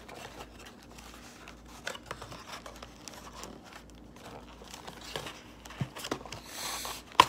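Cardboard trading-card box being pried and torn open by hand: scattered rustling, crinkling and small clicks, with a longer tearing sound near the end and a sharp click just before it finishes.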